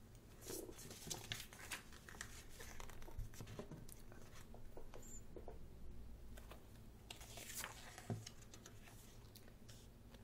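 Pages of a thick photobook being turned by hand: faint paper rustling and small handling clicks, with louder page swishes about half a second in and again around seven seconds in.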